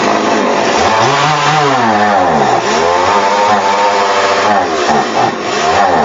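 An engine revving up and down several times, its pitch rising and falling in repeated swells, loud and continuous.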